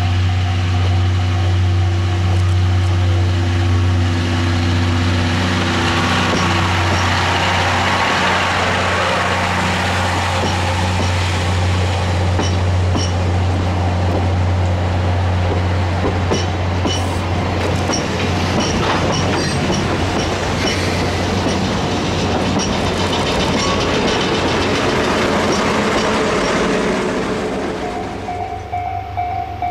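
A train hauled by a DE10 diesel locomotive passing close by. A low, steady engine drone gives way to the rumble of wheels on rail with scattered clicks over rail joints as the coaches go past. Near the end a level crossing warning bell rings steadily.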